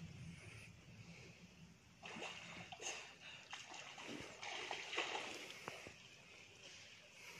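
A hand sloshing and splashing in shallow stream water as it gropes over the rocky bed for a stone. The splashing picks up about two seconds in and goes on for about four seconds, with a few sharp clicks.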